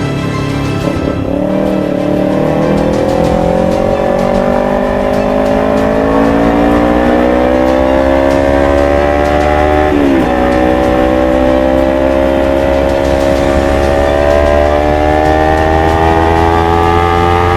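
Kawasaki Ninja 250 FI's parallel-twin engine through a full-system Akrapovic GP exhaust, accelerating under load with its pitch climbing steadily. It drops once, about ten seconds in, at an upshift, then climbs again.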